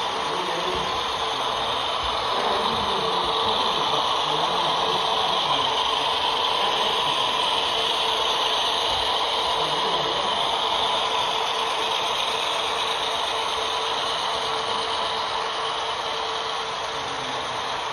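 Model railroad train running past: Santa Fe diesel locomotives and boxcars rolling along the track, a steady mechanical running noise with a constant hum. It swells a little in the middle and eases off near the end as the train goes by.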